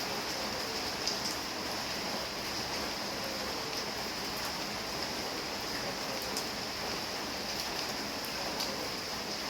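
Steady rain falling: an even hiss with scattered sharper taps of single drops.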